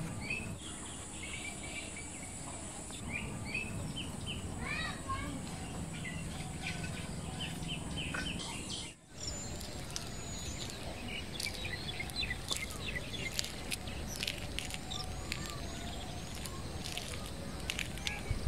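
Outdoor birds chirping and calling, many short rising and falling notes, over a steady high insect drone. The sound drops out briefly about nine seconds in. After that the chirping goes on with scattered light clicks, and the drone is fainter.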